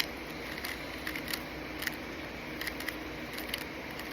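Rubik's Cube layers being turned by hand: an irregular run of light plastic clicks, several a second at times, from a speed-cube-style mechanism that clicks rather than squeaks.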